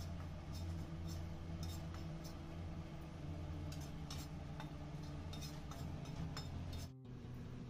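Steel spoon scraping and clinking irregularly against a stainless steel kadai while stirring a dry powdered spice mix, over a steady low hum. The hum cuts off suddenly near the end.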